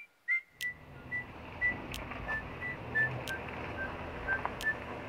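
A whistled tune of short, pure high notes at changing pitches, a few each second. About half a second in, a steady low rumble comes in underneath, with a few sharp clicks.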